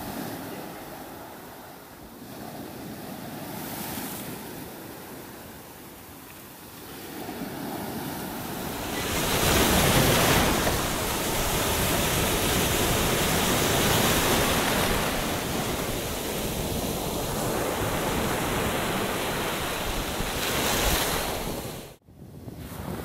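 Sea surf: waves breaking and washing up over the shore in a steady rush of water. The surf grows louder about a third of the way in, and the sound drops out for a moment near the end.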